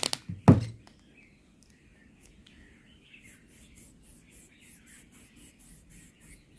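A couple of sharp plastic handling clicks, then a small lens-cleaning gadget rubbed quickly back and forth over a phone screen in a rapid series of short scratchy strokes. Birds chirp faintly in the background.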